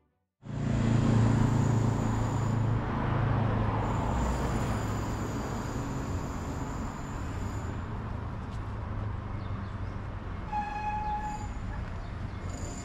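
Steady outdoor rumble of road traffic and wind on the microphone, starting abruptly about half a second in and easing after a few seconds. A short, high-pitched horn toot sounds once about ten and a half seconds in.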